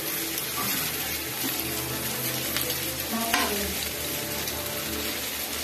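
Tandoori chicken pieces sizzling in a hot grill pan as they are turned over. A utensil gives a sharp click against the pan about three and a half seconds in.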